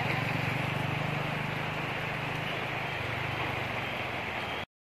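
Steady rain with a constant low engine hum underneath; the sound cuts off abruptly just before the end.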